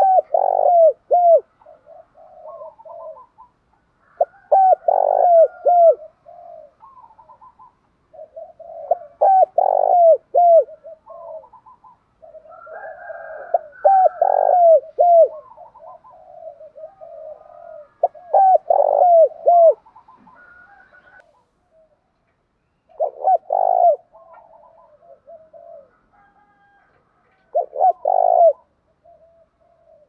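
Spotted dove cooing, a rhythmic phrase of several coos repeated about every four to five seconds, with softer coos in between.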